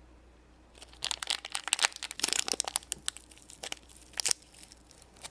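Crinkling of small plastic toy packaging being handled and opened: dense crackling starting about a second in, thinning to a few scattered clicks before stopping.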